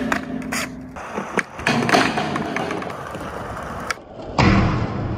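Skateboard tricks on a ledge: the board clacks as it pops and lands, the trucks grind along the ledge's edge, and the wheels roll on concrete. Near the end a second attempt brings a loud grind and a hard landing.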